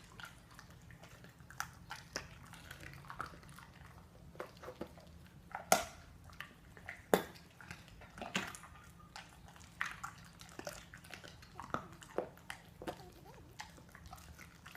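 Irregular sharp knocks and clicks, the loudest three falling between about six and eight and a half seconds in, with a few short pitched sounds between them.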